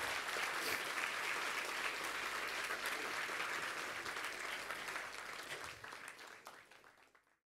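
A lecture-hall audience applauding steadily. The applause fades out over the last couple of seconds and then cuts off.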